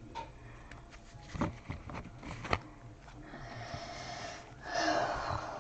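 A stack of trading cards being handled and leafed through by hand: a few light taps and clicks, then longer rustling scrapes of cards sliding over one another in the second half.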